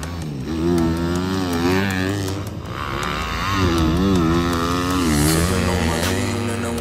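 Motocross bike engine being ridden hard, revving up and easing off over and over as the throttle is worked, its pitch rising and falling.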